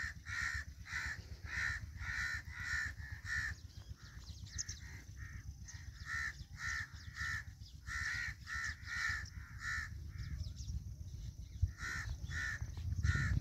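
Crows cawing over and over, short harsh calls about two a second, breaking off briefly before a few more near the end.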